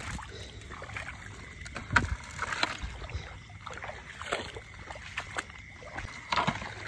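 Shallow water sloshing and splashing as someone moves through it among grass, with irregular sharp knocks and rustles.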